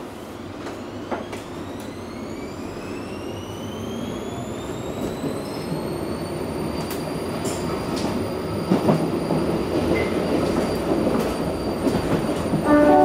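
Interior of a Berlin U-Bahn F79 train pulling away and speeding up: the drive whine rises in pitch and levels off about halfway through while the running noise grows steadily louder, with the wheels clicking over rail joints now and then. A short tone sounds near the end.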